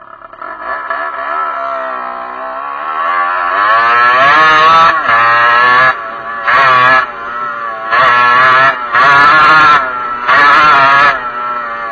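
Derbi enduro motorcycle engine rising in pitch, then revved in about six short, loud bursts of throttle, dropping off sharply between each.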